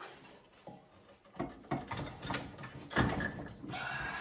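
Knocks and clunks as a retractable air hose reel is lifted and fitted onto carriage bolts, with a short scrape near the end.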